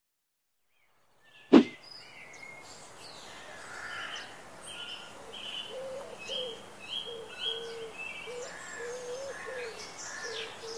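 One sharp metallic clang about one and a half seconds in. Then outdoor ambience with birds calling throughout: repeated short high chirps, and a lower call note repeated over and over.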